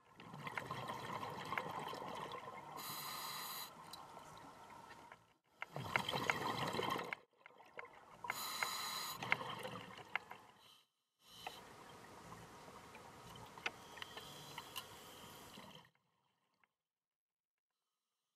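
Scuba diver's open-circuit regulator breathing underwater: bubbling, gurgling exhaust bubbles in four long runs with short pauses between, some with a brief hiss. The bubbling stops about two seconds before the end.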